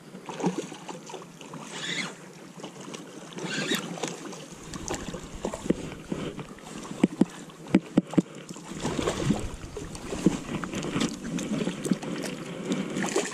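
A hooked mullet being fought on a spinning rod: reel and line handling with many sharp clicks and knocks, and the fish splashing at the surface near the end. Wind rumbles on the microphone through the middle and later part.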